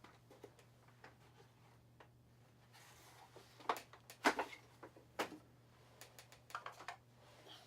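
A plastic-and-steel bar clamp handled against a piece of wood: a few scattered short clicks and knocks over a faint steady hum.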